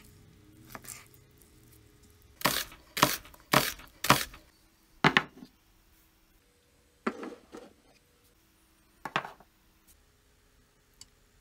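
Kitchen knife chopping through a salted herring fillet onto a plastic cutting board: five sharp knocks about half a second apart. A few lighter knocks of kitchenware follow a couple of seconds later.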